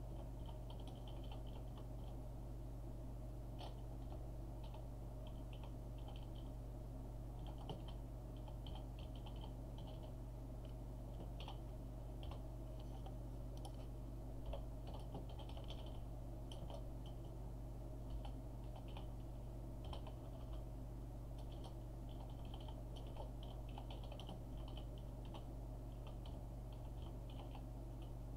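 Computer keyboard typing: bursts of quick key clicks broken by short pauses, over a steady low hum.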